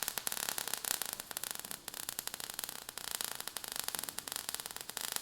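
Crackling static: a steady hiss full of fast, irregular clicks.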